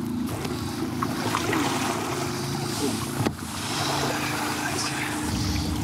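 Boat motor idling with a steady low hum, under water and wind noise; a single sharp knock a little over three seconds in.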